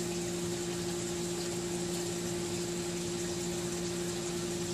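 Water trickling into an ebb-and-flow aquaponic grow bed as it fills around its bell siphon, over a steady low hum.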